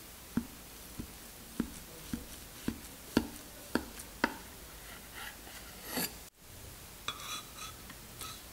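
A knife cutting down through a soft baked yogurt cake, its blade knocking on the wooden cutting board about eight times, roughly twice a second. Softer scraping and rustling follow.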